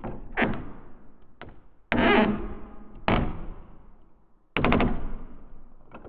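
Cinematic impact hits: four heavy strikes, each ringing out in a long fading tail, with lighter knocks between them.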